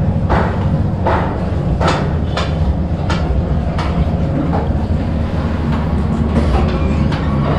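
A knife chopping nuts on a cutting board with sharp strokes about twice a second, the strokes growing fainter after about four seconds, over a steady low rumble.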